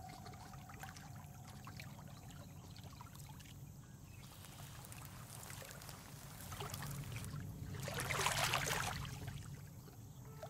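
Faint water sounds: trickling and lapping with small clicks, swelling into a louder rush about eight seconds in that then fades.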